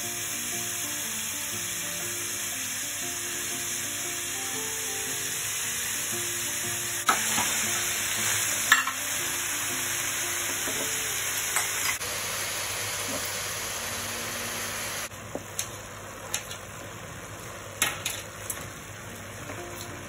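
Chopped beetroot, mooli and their leafy greens and stems sizzling in hot oil in a steel pan while a wooden spatula stirs them, knocking and scraping against the pan now and then. The sizzle eases about three quarters of the way through, leaving mostly quieter stirring knocks.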